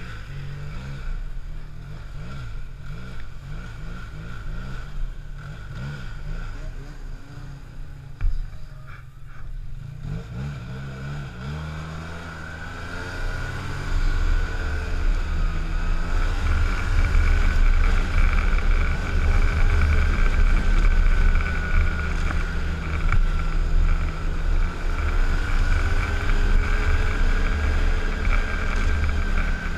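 Arctic Cat snowmobile running slowly, its engine pitch wavering, with a single sharp knock about eight seconds in. Near the middle it accelerates and then runs louder and steadily at trail speed, with a steady high whine over the engine.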